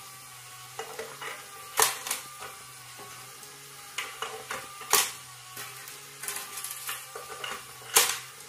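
Metal coins clinking as a parrot handles them and drops them into a toy coin bank. Small clicks and scrapes, with three sharp clinks about two, five and eight seconds in, over a low steady hum.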